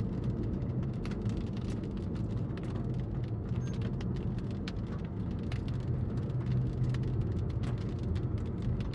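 Scattered raindrops ticking on a car's windshield over the steady low rumble of the vehicle, heard from inside the cabin.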